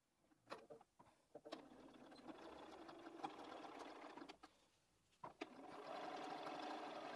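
Bernina 570 QE sewing machine stitching binding onto a quilted cushion edge, in two short runs with a pause of about a second between them, after a few clicks at the start.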